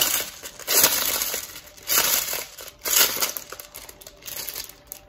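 Small clear plastic jewelry bag crinkling and rustling in short bursts as a necklace on its card is drawn out of it.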